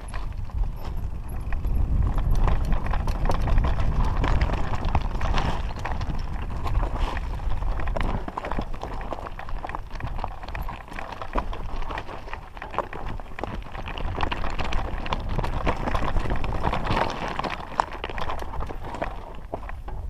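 Mountain bike descending a loose rocky trail: tyres crunching and clattering over stones, with a continuous rapid rattle of knocks from the bike and a heavy low rumble.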